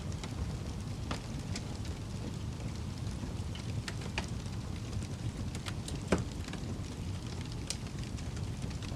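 Wood fire crackling in a fireplace: a steady low roar with scattered sharp pops, the loudest about six seconds in.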